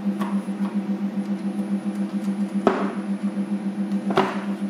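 Milling attachment motor on a small CNC lathe running with a steady hum, and two sharp metallic clicks, one about halfway through and one near the end, as a hand handles the part held in the lathe chuck.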